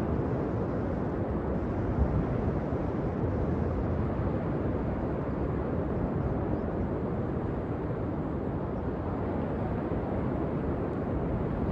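Steady wind rushing over the microphone, mixed with the wash of breaking surf, with small gusts.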